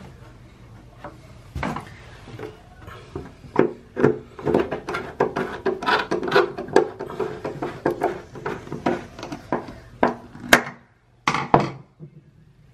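Flathead screwdriver clicking and scraping in the screw of a metal shower drain cap as the cap is screwed back down into the drain, in quick irregular ticks and rasps, with two louder knocks near the end.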